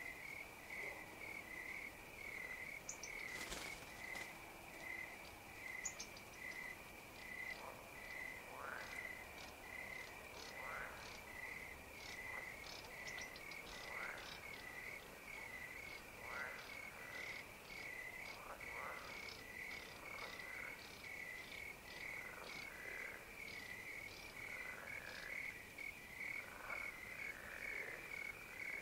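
A pond night chorus: crickets chirp in a steady pulsing rhythm while frogs call every couple of seconds, each call falling in pitch. There is a single sharp click about three and a half seconds in.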